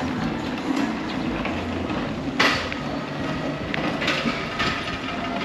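Street traffic noise with motor vehicles running by, and a sharp knock about two and a half seconds in.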